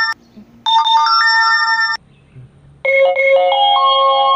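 Mobile phone ringtone playing a short electronic melody of clear tones. The same phrase sounds twice, then a lower-pitched phrase starts about three seconds in.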